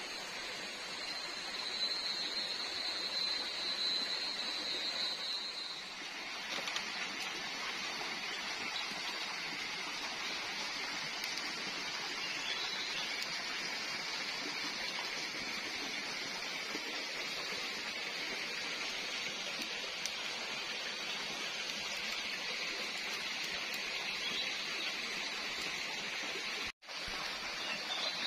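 Steady rush of water in a tropical forest, with a thin, high, steady whine for the first six seconds. The sound changes at a cut about six seconds in and drops out for a moment near the end.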